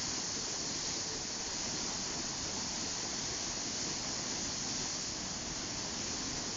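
River in flood, churning as whitewater rapids: a steady, even rushing of water.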